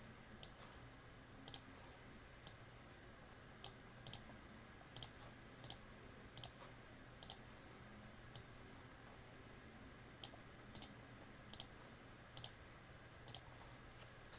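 Faint computer mouse clicks, about fifteen sharp ticks at irregular intervals of a half to one and a half seconds, over a faint steady low hum.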